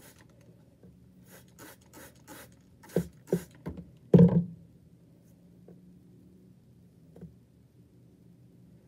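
Plastic trigger spray bottle squirting water in a quick run of about seven short hissing sprays, followed about four seconds in by a single loud knock of handling.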